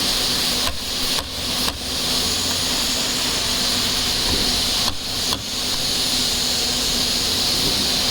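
Compressed air hissing steadily from a pneumatic air gun, cut off and restarted briefly several times in the first two seconds and again about five seconds in.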